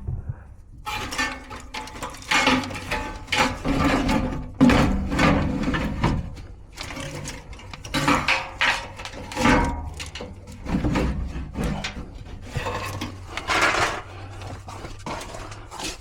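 Irregular rubbing, scraping and knocking of hands-on work in a cramped crawl space, as a furnace blower assembly is handled and worked toward the cabinet.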